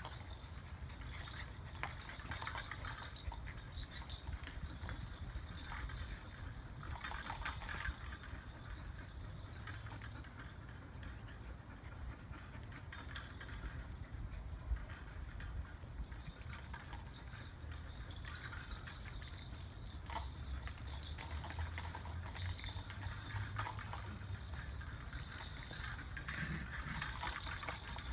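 Scattered light rattles, knocks and rustles as golden retriever puppies tug and bat at plastic and fabric toys hung from a PVC-pipe playpen, over a steady low rumble.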